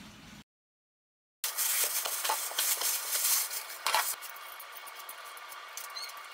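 Dead silence for about a second, then taro being handled at a stainless-steel kitchen sink: a hissy run of scrapes and clicks for a couple of seconds, then quieter scraping and tapping as a taro is held over a plastic bag for peeling.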